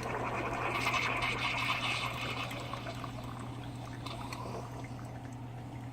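Coffee streaming from a single-serve coffee maker into a cup as it fills, a pouring trickle that is strongest for the first couple of seconds and then tapers off. A steady low hum runs beneath it.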